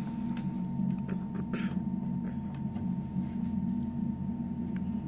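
Room tone: a steady low hum with a faint thin high tone held throughout, and a few soft brief rustles or clicks.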